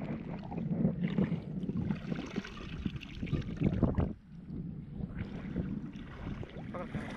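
Shallow river water splashing and sloshing as someone wades through it, with water pouring out of a plastic bowl back into the river.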